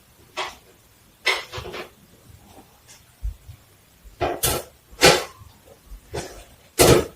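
Close-miked food and mouth noises from a person at a meal: a string of short, irregular crunches and smacks, with the loudest near the end.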